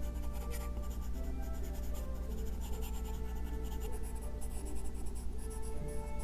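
Stylus tip scratching in short, repeated strokes across an iPad Pro screen fitted with a paper-texture film, over soft background music.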